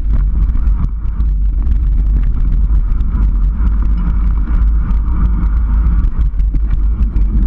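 Steady wind rumble on the microphone of a handlebar-mounted camera on a mountain bike riding a dirt single track, with tyre noise and frequent small rattles and clicks from the bike.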